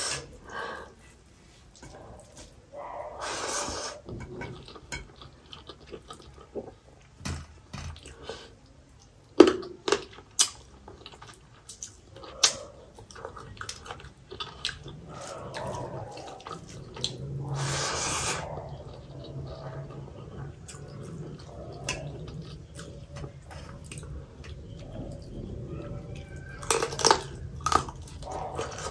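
Hand-eating sounds: fingers mixing and scooping rice against a steel plate, giving scattered small clicks and taps, with two longer hissing noises, one about three seconds in and one past the middle. Near the end, a handful of rice goes into the mouth and chewing begins.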